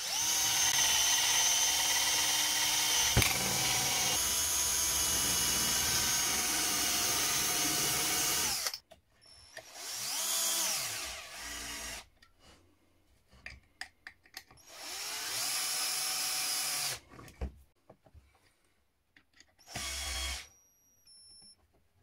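Parkside cordless drill driver driving screws into chipboard. One long run of about nine seconds with a click about three seconds in, then three shorter bursts, the motor speeding up and slowing down at each.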